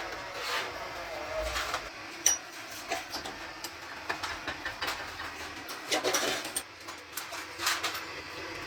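Irregular clinks and knocks of metal gearbox parts and tools being handled during repair, the sharpest about two seconds in and a cluster of rattling near the end.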